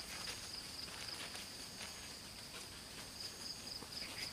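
Insects chirping in a high, pulsing trill that goes on throughout, with faint scattered clicks over a steady outdoor hiss.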